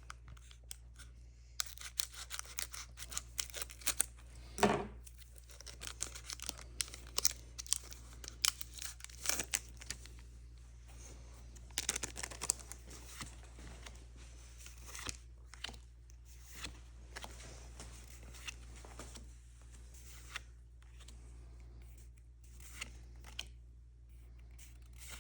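Foil Pokémon booster pack being torn open and its wrapper crinkled, with irregular short crackling and rustling strokes and one louder crackle about five seconds in.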